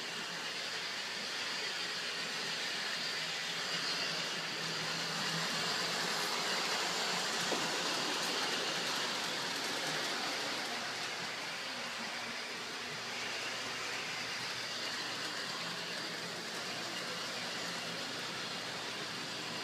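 Bachmann Big Haulers toy train running along its track, a steady whirring hiss of motor and wheels that grows a little louder midway.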